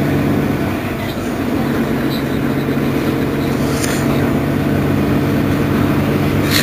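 Mercedes-Benz Citaro city bus's engine idling steadily while the bus stands at a stop, with a brief click about four seconds in.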